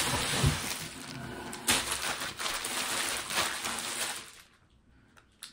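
Packaging rustling and crinkling as items are handled and pulled out of a box, stopping about four seconds in.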